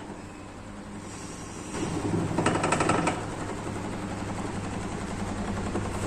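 LG top-load washing machine spinning with a loud, generator-like drone that grows louder about two seconds in, with a burst of rapid rattling for about a second. The excessive spin noise is the sign of a worn gearbox that needs replacing.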